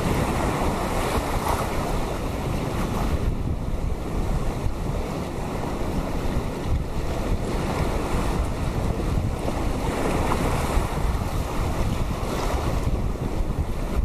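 Small ocean waves washing in among rocks and running up the sand, the surf swelling and easing every few seconds, with wind buffeting the microphone as a low rumble underneath.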